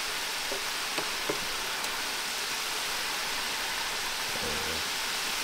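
Chicken pieces deep-frying in hot oil in an electric deep fryer: a steady, even sizzle, with a few light clicks of metal tongs in the first second and a half.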